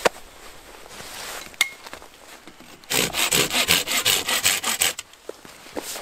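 Hand saw cutting through a snow-covered fallen branch: quick back-and-forth strokes of the blade in the wood for about two seconds, starting about three seconds in. A sharp click comes right at the start.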